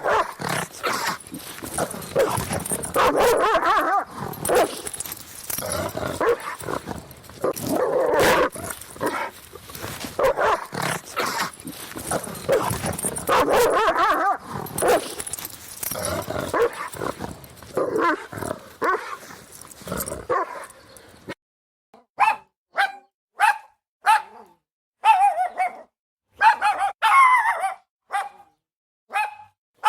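German Shepherd barking: for about the first twenty seconds a dense, unbroken run of overlapping barks, then it changes suddenly to single sharp barks spaced with short silences, roughly one or two a second.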